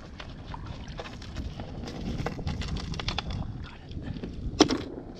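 Wind buffeting the microphone over water beside a kayak, with a run of small clicks and taps as fishing gear is handled on the kayak's deck, and one sharp knock about four and a half seconds in.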